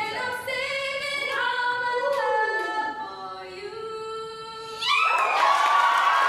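A woman singing a short unaccompanied phrase of held notes, one of them sliding down in pitch. About five seconds in, the audience breaks into applause and cheering.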